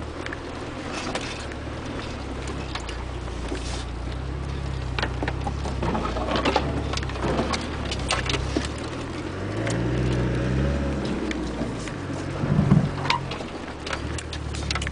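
Land Rover Discovery's four-cylinder Tdi turbodiesel running at low revs, heard from inside the cabin as it drives over a rough track, with repeated knocks and rattles as the vehicle jolts over ruts. The revs rise briefly about ten seconds in, and a cluster of sharp knocks comes shortly after, the loudest moment.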